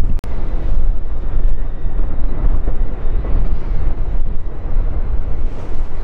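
Steady low rumble of the Litli Hrútur lava fountain erupting from its cone, with wind buffeting the microphone.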